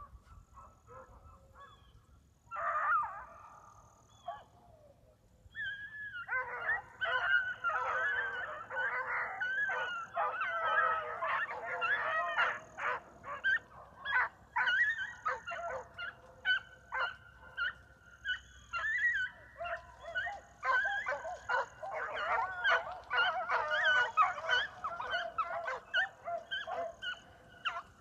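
A pack of young beagles giving tongue while running a rabbit: a short burst of bawling about three seconds in, then from about six seconds on a continuous chorus of several hounds baying over one another.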